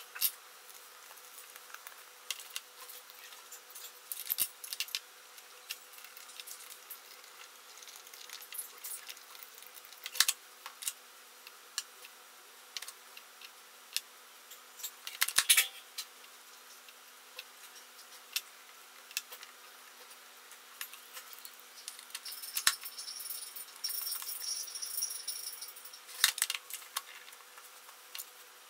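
Scattered light clicks and metallic clinks of small cordless-drill parts being handled: a screwdriver, small gears and the motor tapped and set down on a wooden bench, with a sharper cluster of clicks about halfway through. A faint steady hum runs underneath.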